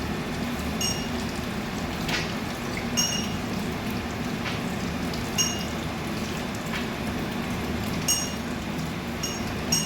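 Steady hum of a gas burner under a wok, with short, ringing metallic clinks every second or few, like utensils touching the wok.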